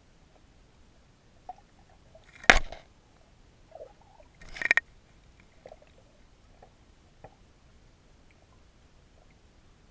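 Two sharp knocks about two seconds apart, with a few faint clicks around them, heard through a GoPro's waterproof housing.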